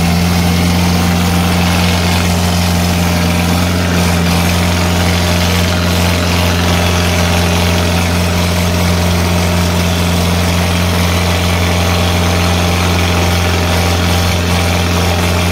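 Tractor diesel engine running steadily at idle, with a loud even hum that holds one pitch throughout.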